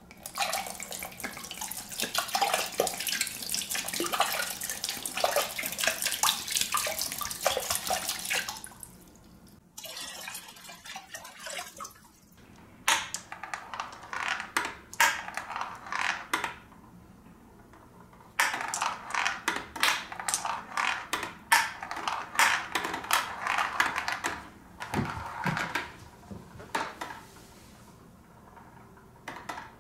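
Water poured into a glass tank, splashing steadily for about nine seconds, then quieter. After that come bursts of short sharp clicks and splashes as glass marbles are dropped in and run down the submerged plastic ramps.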